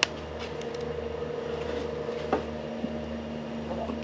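Steady mechanical hum, as from a running appliance, with a few light clicks and a knock a little over two seconds in.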